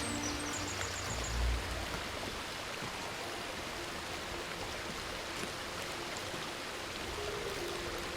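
Mountain stream running, a steady rush of water.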